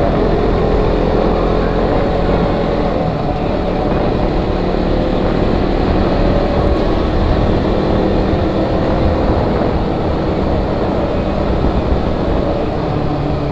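Riding on a KTM Duke 125: its single-cylinder engine running at a steady speed under heavy wind noise on the rider's microphone.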